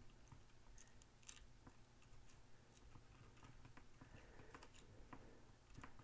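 Faint, scattered small scrapes and clicks of a hobby-knife blade working under an adhesive label to lift it off a plastic remote-control case.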